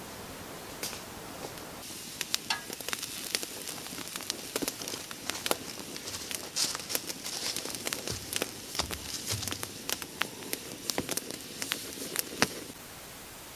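Wood campfire crackling and popping, with sharp pops at irregular intervals over a soft hiss. The crackling starts about two seconds in and cuts off abruptly near the end, leaving only a steady hiss.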